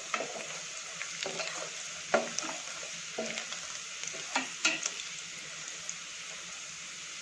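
Chopped garlic and cumin seeds sizzling in hot oil in a steel pot, frying for a tadka until the garlic browns. A spoon stirs through it and clicks against the pot several times.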